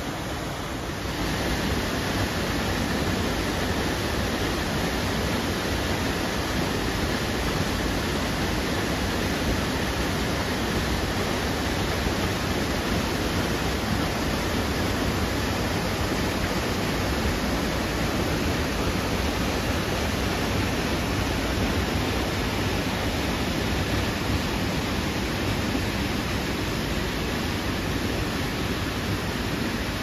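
Small forest waterfall and stream: water rushing steadily over rocks, a continuous even roar that gets louder about a second in.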